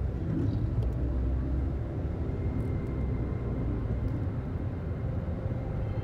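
Steady low rumble of a car driving along a road: engine and tyre noise.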